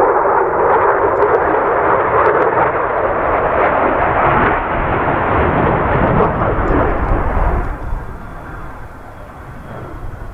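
F-16 fighter jet's engine: loud, rough, crackling jet noise that drops away sharply about eight seconds in to a quieter, more distant engine sound with a faint steady whine.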